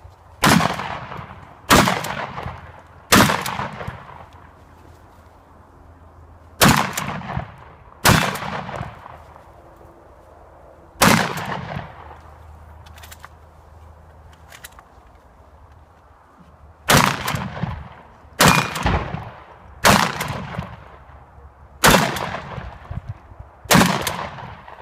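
Shotgun firing eleven shots, each a sharp report with a short ringing tail: three about a second and a half apart, then two more, a single shot, a long pause, and a final string of five shots.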